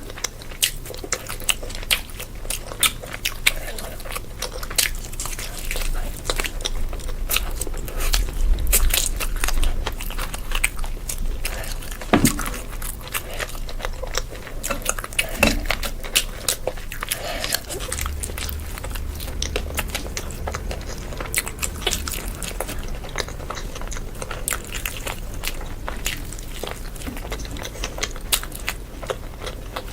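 Close-miked eating sounds: a person biting and chewing food, with many irregular sharp clicks and crackles of mouth and food throughout.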